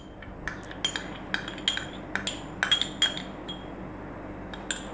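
Light clinks and taps of kitchenware against glass as ghee is poured and scraped from a small glass bowl into a glass bowl of flour: a quick run of clinks over the first three seconds or so, and one more near the end.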